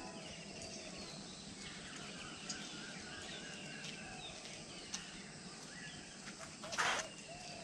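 Faint dawn birdsong: several small birds chirping and calling over a light outdoor background hiss, with a brief noise near the end.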